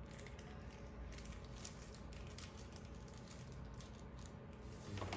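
Faint clicks and light rustling of small plastic pieces being handled, over a low steady room hum.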